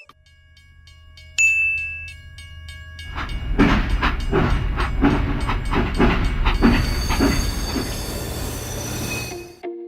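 Train running on a railway: a short high whistle about a second and a half in, then wheels clacking over the rail joints at about two beats a second over a rumble, starting about three seconds in.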